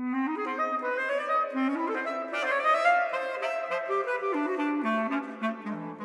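Bass clarinet playing a fast run of notes that climbs to a high point about halfway through, then falls back to its low register near the end.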